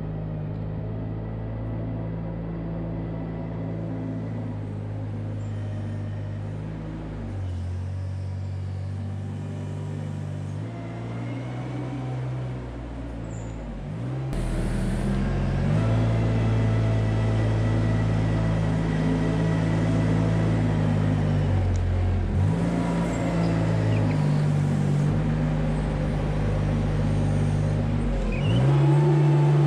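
Tractor diesel engine running steadily under load while pulling a plough. Its note shifts a few times and dips briefly near the end, and it grows louder about halfway through.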